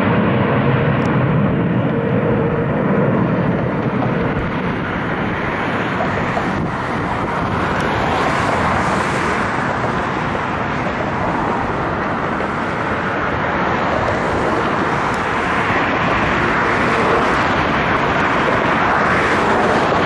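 Jet engine noise from Blue Angels F/A-18 Hornets flying over: a loud, continuous rush that swells about halfway through and again near the end.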